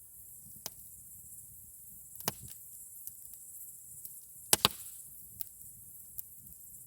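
Campfire crackling: burning wood snapping with scattered sharp pops, the loudest a quick double pop about four and a half seconds in.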